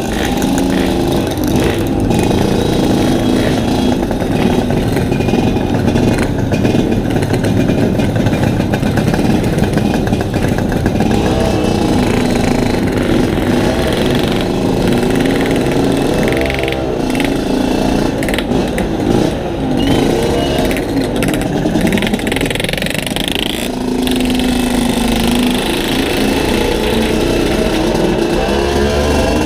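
Two-stroke Yamaha RX-King motorcycles running at low speed with a steady engine note, their pitch rising and falling several times in the second half as the throttle is opened and closed.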